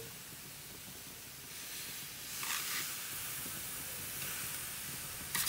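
Raw pork ribs sizzling on a hot gas grill grate, a steady hiss that grows stronger about one and a half seconds in and swells briefly near the middle.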